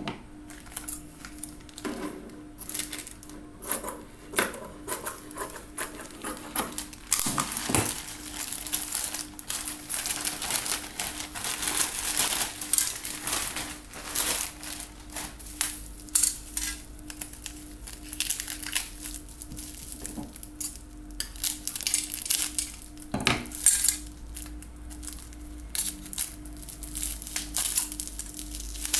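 A plastic courier mailer bag and bubble wrap being handled and opened by hand: irregular crinkling and rustling, with frequent sharp clicks, over a faint steady hum.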